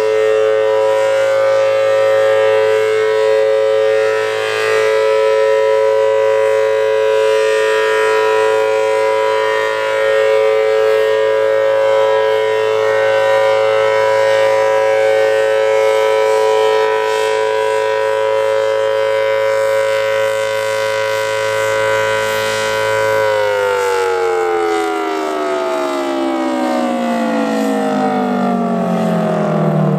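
Federal Signal Thunderbolt 1000T siren with a 4/5-port chopper sounding a loud, steady two-tone Alert chord. About three-quarters of the way through the pitch starts to fall steadily as the siren's rotor winds down.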